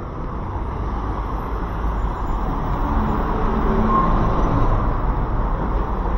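A motor vehicle driving past with engine and road noise, growing louder to a peak about four seconds in, then easing off slightly.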